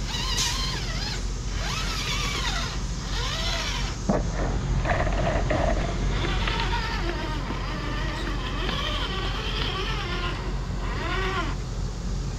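A Traxxas TRX-4 RC crawler's electric motor and geartrain whining, the pitch rising and falling again and again as the throttle is worked while it crawls over rocks, with a sharp knock about four seconds in.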